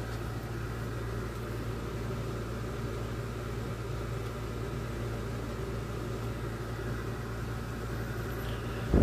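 Steady low mechanical hum of a running motor, even throughout, broken by a brief loud knock right at the end.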